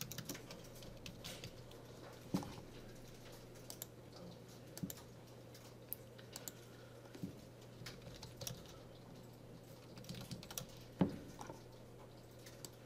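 Computer keyboard keys being typed in short, scattered runs of a few keystrokes, over a faint steady low hum.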